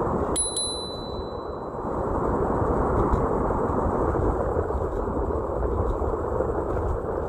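Strong wind buffeting the microphone during an electric scooter ride, a steady rumbling rush. Less than a second in, a small bell is struck twice and rings out briefly in a bright ding.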